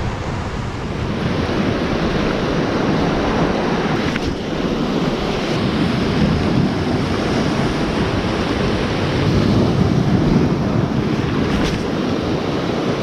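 Sea surf breaking and washing against the rocks below, a steady rush that swells a little near the end, with wind buffeting the microphone.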